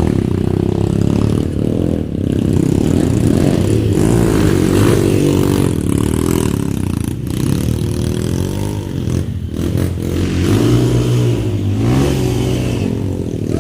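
Trail motorcycle engines revving, the pitch rising and falling again and again.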